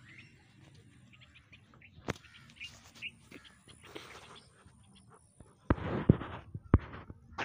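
Small birds chirping faintly outdoors, with a sharp click about two seconds in. Near the end comes a louder burst of rustling noise with a few sharp knocks.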